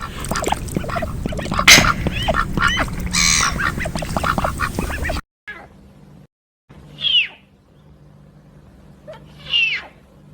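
Animal calls: a dense jumble of many short overlapping calls for about five seconds, then after a cut two loud single calls about two and a half seconds apart, each sliding down in pitch.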